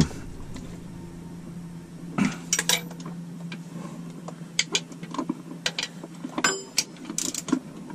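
Socket wrench and extension clinking and knocking against the metal of a marine V8's front end in scattered, irregular strikes, some with a short metallic ring, as the tensioner bracket bolts are snugged down. A steady low hum runs underneath.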